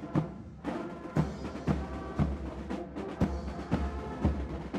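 Air Force military band playing a quick march: brass over a steady bass-drum beat, about two beats a second.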